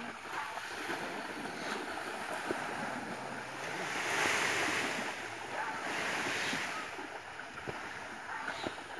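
Water sloshing and splashing as an elephant wades through shallow floodwater dragging a leafy tree branch, swelling louder twice, about four and six seconds in.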